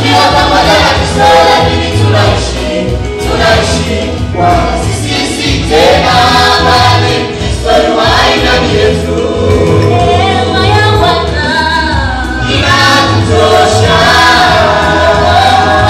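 Choir singing a gospel song with instrumental backing and a steady bass line.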